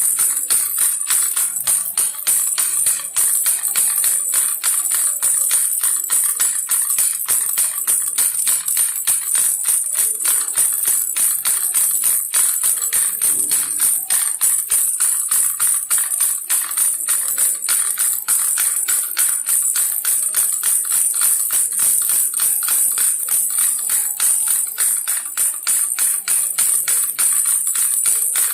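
Baby rattle shaken steadily, a continuous fast, even rattling with a bright, jingly high end.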